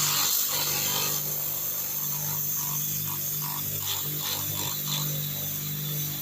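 Electric power tool motor running steadily with a low hum and a high hiss, with a faint rhythmic scraping about two or three times a second through the middle.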